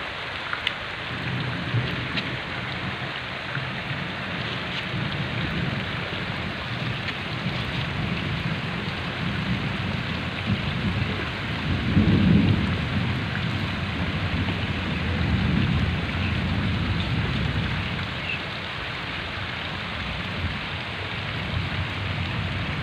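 Heavy rain falling steadily, with a low rumble that swells about halfway through and again a few seconds later.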